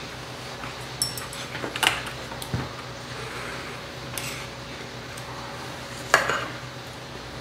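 Metal spoons and chopsticks clinking and scraping against earthenware ttukbaegi pots and stainless steel bowls while eating: a handful of separate clinks, the loudest about six seconds in, over a faint steady hum.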